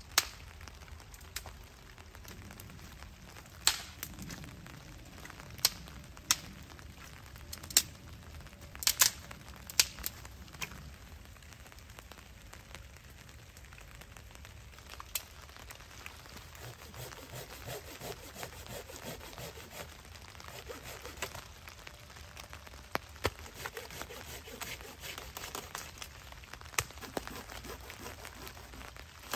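Dry wood cracking and snapping, with a dozen or so sharp cracks over the first fifteen seconds, as sticks are broken to feed a small campfire. This is followed by a longer stretch of rasping strokes from a Silky Gomboy folding saw cutting wood.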